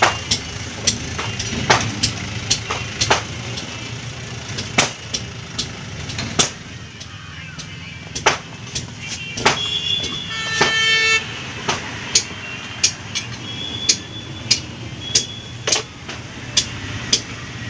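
Steel pliers working at a truck tyre's rubber tread, giving sharp clicks every half second to a second over a steady low vehicle rumble. A vehicle horn sounds for about a second, about ten seconds in.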